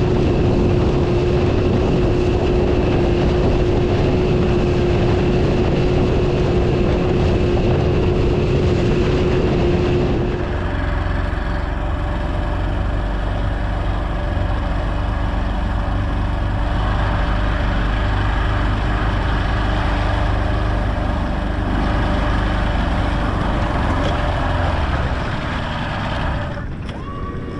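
Fishing boat's outboard motor running at speed across the lake, a loud steady drone with rushing wind and water. About ten seconds in, the engine note changes and carries on steadily.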